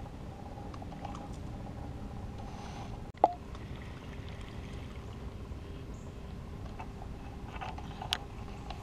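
Faint steady background noise, broken by one sharp click with a short ring about three seconds in and a lighter click near the end.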